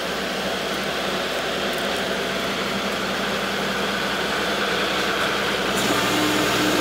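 Engine of a Terex BT4700 boom-truck crane running steadily as it swings a suspended redwood log. Near the end a second, higher steady hum joins the engine.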